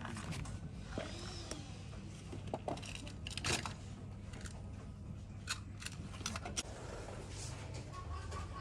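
Old paper photographs and letters being handled and shuffled: scattered short rustles and sharp clicks, the loudest about halfway through, over a low steady room hum.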